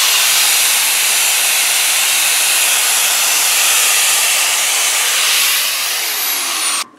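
Electric angle grinder running against a manual transmission's steel input shaft, cleaning it up: a loud, steady hissing grind that cuts off suddenly shortly before the end.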